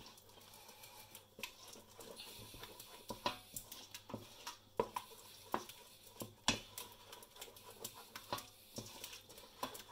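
Wooden spoon stirring a thickening roux sauce in a stainless steel saucepan as it heats back toward the boil: faint, irregular soft clicks and taps.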